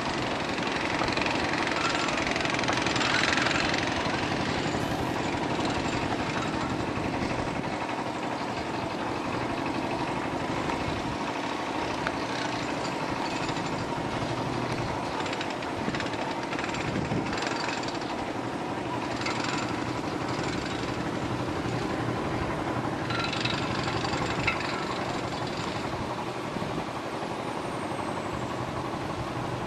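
Heavy construction machinery running steadily, a continuous engine drone with a dense, even noise over it.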